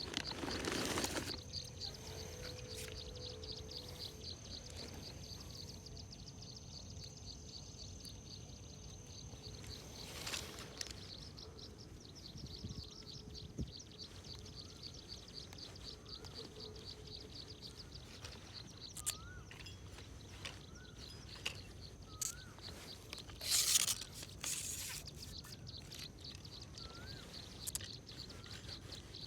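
Riverside outdoor ambience: a steady, fast, high-pitched trill typical of insects, short rising bird chirps in the second half, and a few brief rustling noises, the loudest about two-thirds of the way in.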